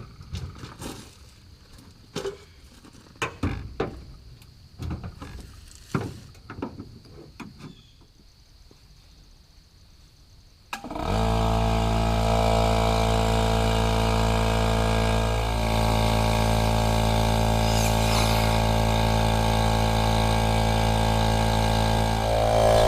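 Scattered clicks and knocks, then about halfway through an air compressor starts suddenly and runs steadily, pumping air into a water tank to pressurize it.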